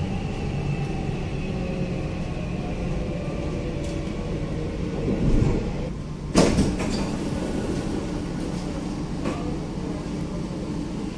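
Dubai Metro train heard from inside the car: a steady low rumble with a faint high electric whine that slowly falls in pitch as the train slows. A sharp, loud clunk comes about six seconds in, and a lighter one near the end.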